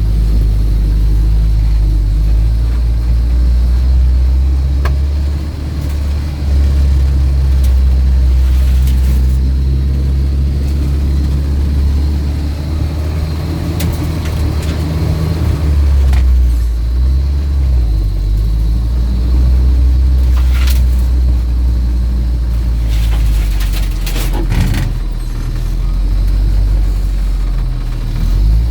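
UAZ off-road vehicle's engine running steadily as it drives, its pitch shifting a few times, with several short knocks and rattles, a cluster of them near the end.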